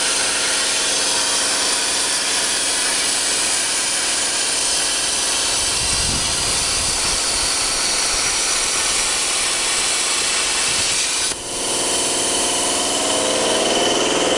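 CNC cutting machine cutting 8 mm mild steel plate: a loud steady hiss over a constant machine hum. About eleven seconds in, the sound drops out for a moment and then carries on with a steady high whine added.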